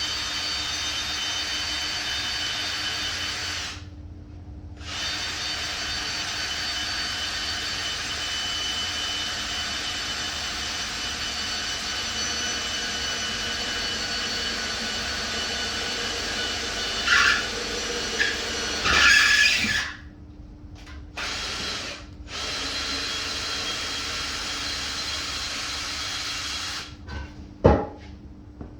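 Power drill running at a steady speed into a wooden 2x4, in long runs with short stops about four seconds in and again around twenty seconds. It gives a few louder bursts around seventeen to nineteen seconds, and there is a sharp knock near the end.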